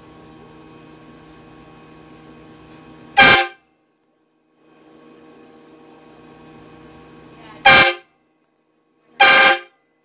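Coaler Systems four-trumpet 12-volt train air horn, fed from a compressor tank and fired by a wall switch, sounding three short, loud blasts: one about three seconds in, then two close together near the end.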